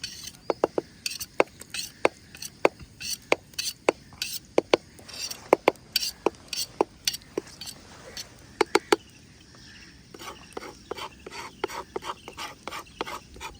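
A metal utensil clinking and scraping against a bowl as a garlic, dried chilli and salt chutney is stirred and mixed. The sharp, ringing clinks come irregularly, about two a second, pause briefly around two-thirds through, then resume softer and quicker.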